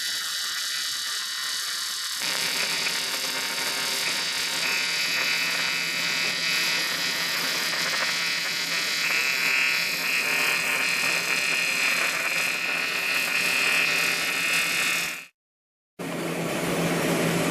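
Welding arc buzzing and crackling steadily as a bead is laid on a throttle body. The sound fills out about two seconds in and breaks off abruptly near the end before resuming.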